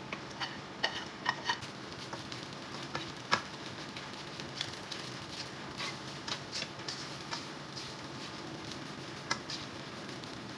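Plastic spatula stirring rice into diced meat and vegetables in a nonstick wok: irregular clicks and taps of the spatula against the pan over a steady frying sizzle, the loudest tap a little over three seconds in.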